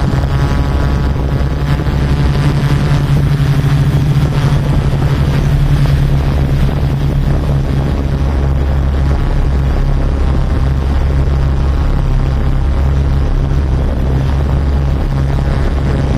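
Yuneec Typhoon Q500 4K quadcopter's electric motors and propellers running with a steady hum.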